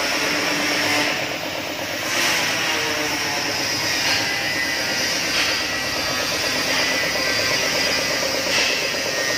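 A 26 HP diesel engine running steadily on an FFC45 hammer-type flour mill, a constant dense mechanical drone.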